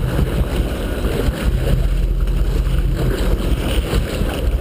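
Boat engine running steadily with a low hum, while water splashes and sloshes against the hull.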